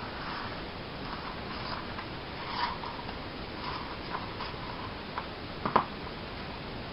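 A roll of carbon-look adhesive vinyl film being unrolled and handled: soft rustling and scraping with a few small clicks, the sharpest one near the end.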